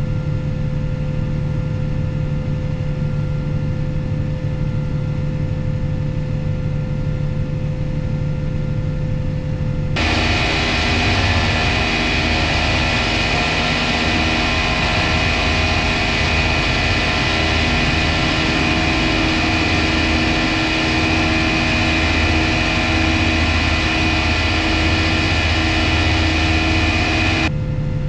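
Tractor and slurry tanker running steadily under load. About ten seconds in, the sound switches abruptly to a louder machine sound with a steady high whine, and switches back shortly before the end.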